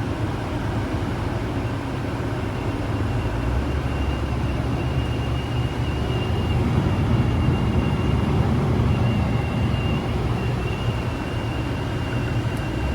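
Car engine running with the air conditioning switched on, and a thin, steady high-pitched whistle that comes in about three seconds in. The engine note gets a little louder as the whistle starts.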